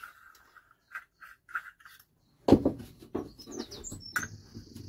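Faint bird chirps, then about two and a half seconds in a sudden loud knock followed by clattering and scraping: a cut-out plug of caravan floor being worked out of a hole saw on a drill. A bird warbles high over it near the end.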